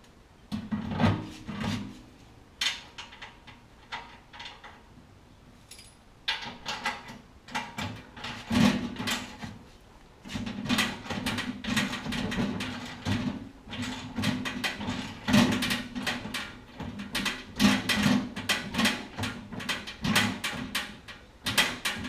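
Runs of rapid metallic clicking as a wrench tightens the nut on a concrete mixer's wheel axle. The clicking is sparse at first and comes in dense runs through the second half.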